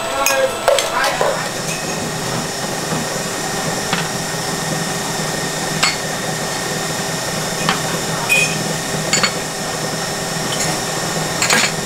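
Ceramic coffee cups and bowls clinking as they are set down and arranged, a sharp clink every second or two, several close together near the end, over a steady kitchen hum.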